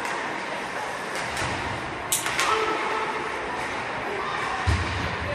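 Ice hockey play in an arena: a steady hiss of skating and crowd noise with faint voices, two sharp clacks about two seconds in, and a low thud near the end.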